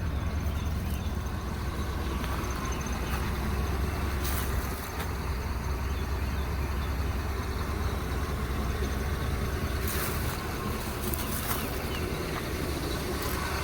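The 1973 Chevrolet Impala's 350 (5.7 L) V8 idling steadily with a deep low rumble, through true dual exhaust with Flowmaster Series 40 mufflers. A few brief hissy noises come in about four seconds in and again around ten to eleven seconds.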